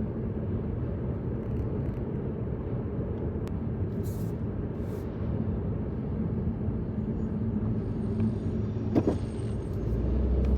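A car driving at low speed in traffic: steady low engine and tyre rumble, with a single short knock about nine seconds in.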